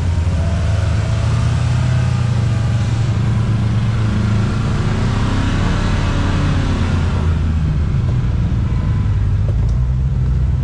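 Kawasaki Teryx KRX 1000 side-by-side driving along a dirt trail, its parallel-twin engine running steadily. A rushing noise swells in the middle and fades again.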